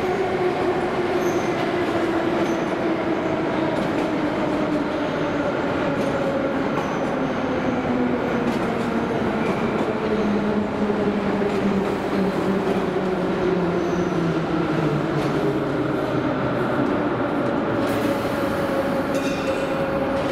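Metro train pulling into the station and braking along the platform: a whine falls steadily in pitch as it slows, over the rumble of the wheels on the rails. A hiss comes in near the end.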